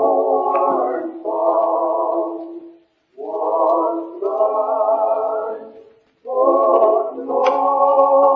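Choir singing long, held chords in drawn-out phrases, with short breaks about three and six seconds in.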